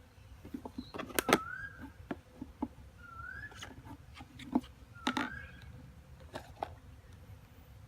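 Sharp clicks and taps of packaging and parts being handled, loudest about a second in and again about five seconds in. A short whistled note that rises and then levels off repeats about every two seconds.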